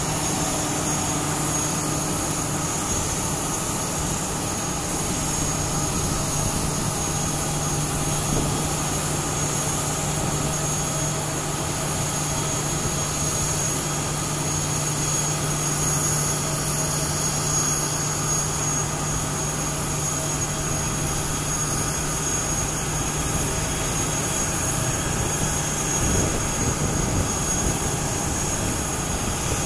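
Jet airliner's turbines running during pushback: a steady high turbine whine over a broad rumble. A low steady hum underneath stops about 26 seconds in.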